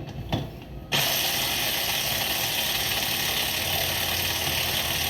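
A few sharp clicks of parts being handled, then from about a second in a steady, dense mechanical noise starts abruptly and runs on evenly.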